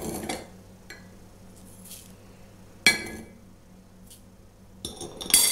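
Metal spoon clinking against a mixing bowl: a few separate clinks, a sharp one about three seconds in, then a quick run of clinks near the end as stirring begins.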